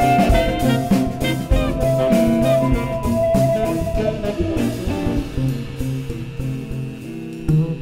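Jazz septet playing, with guitar and drum kit under a long held high note in the first half; the music grows quieter toward the end.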